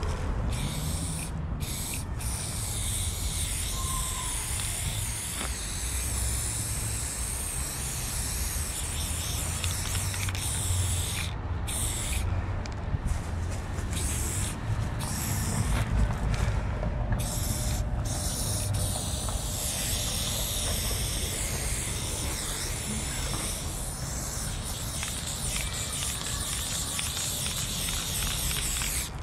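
Aerosol spray paint can spraying in long hisses, broken by several short pauses, over a low steady rumble.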